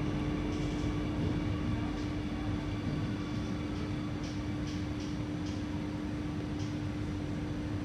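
Alstom Metropolis C830C metro train heard from inside the car, running steadily and coming into a station: a continuous rumble of wheels on rail under a constant hum from the train's traction equipment, with a few faint clicks.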